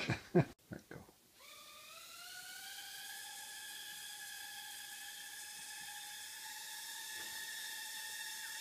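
Tiny quadcopter's motors spinning up, a high whine that rises in pitch for about a second and a half, then holds steady. A few brief, louder sounds come in the first second, before the motors start.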